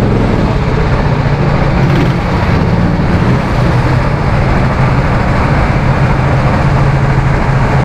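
Honda GX270 single-cylinder four-stroke engine of a SodiKart RT10 rental go-kart idling steadily, heard close up from the kart, with an even pitch.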